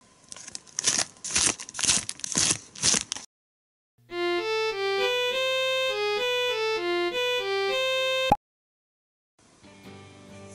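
Plastic wrapper of a chocolate wafer packet crinkling in gloved hands for about three seconds. After a short gap, a short electronic jingle plays: a simple reedy melody over a steady low drone, cut off with a click. Soft background music begins near the end.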